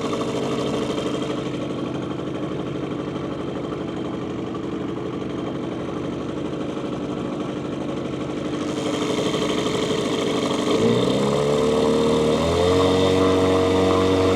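Small boat's outboard motor running steadily at low speed. It is throttled up about eleven seconds in, its pitch rising, and steps up again a moment later to a steady higher speed.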